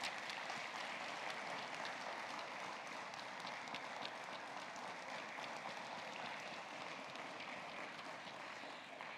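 Congregation applauding: many people clapping steadily, easing off slightly near the end.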